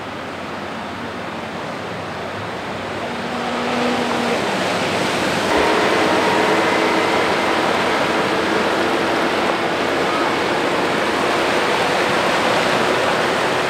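Floodwater rushing across a street while a city bus drives through it, pushing up a splashing wake. The rush grows louder about four to six seconds in, with a faint steady engine hum over it.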